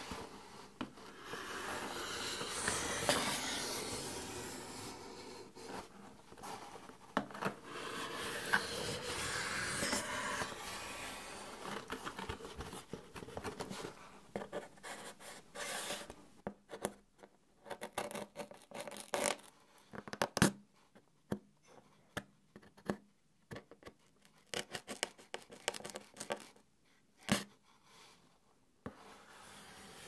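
A metal knife blade scraping and rubbing along a cardboard box, then from about halfway through, a string of separate sharp taps and clicks as the blade tip pokes and taps the cardboard.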